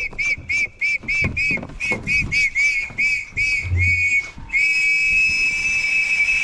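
A plastic safety whistle blown in a rapid series of short shrill blasts, about three a second. After about four seconds it switches to one long, steady blast. A few dull low thumps sound underneath.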